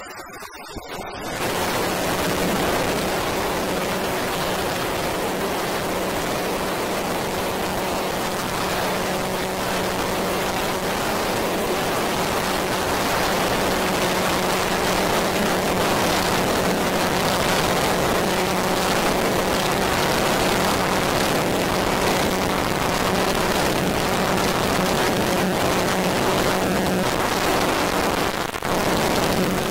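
Synthesizer noise drone: a dense, steady hiss-like wash over a low held tone, swelling in about a second in, with a brief dip near the end.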